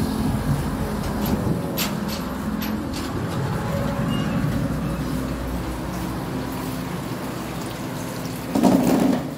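Steady street background noise with a low rumble, as from passing traffic and wind on a phone's microphone. There are a few short clicks, and a louder brief noise near the end.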